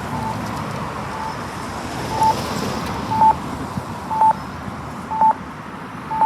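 Accessible pedestrian signal push button at a crosswalk sounding its locator beep, a short steady tone about once a second, over traffic noise.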